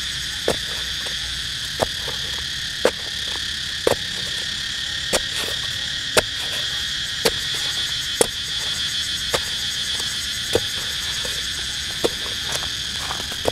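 A knife blade stabbing into hard, dry soil about once a second as a hole is dug, each stroke a dull knock. Under it runs a steady high-pitched drone of insects.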